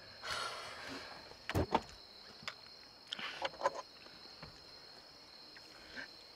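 Rustling and a few sharp knocks and clicks as people shift about in the seats of a parked car, over a steady high-pitched hiss. The loudest knocks come in a pair about a second and a half in, and a cluster of clicks follows a little after three seconds.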